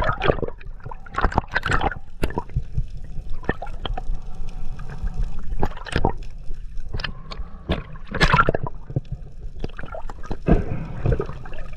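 Underwater sound: bubbles gurgling and water moving, with irregular sharp clicks and knocks over a low steady rumble, louder bursts about eight and ten and a half seconds in.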